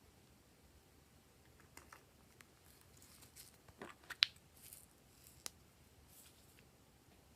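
Slime being handled and squished: a scattering of soft, sticky clicks and crackles, with one sharper click about four seconds in.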